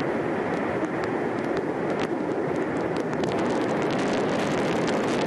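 Soyuz rocket's liquid-fuelled core and four strap-on booster engines firing at liftoff: a loud, steady rumble with a crackle that grows denser from about three seconds in.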